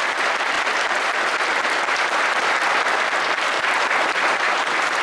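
Audience applauding, a steady even clapping of many hands.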